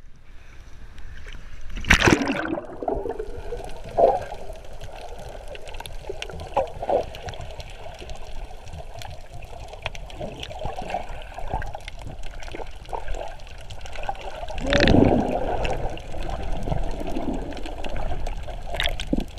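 Sea water sloshing and gurgling against a camera going from the surface to underwater, muffled by the waterproof housing. A sharp splash comes about two seconds in, and a longer rush of water around fifteen seconds.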